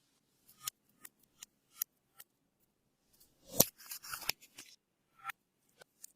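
Clear slime being squeezed and pressed by hand, giving scattered sharp clicks and pops from trapped air. They thicken into a quick cluster a little past the middle.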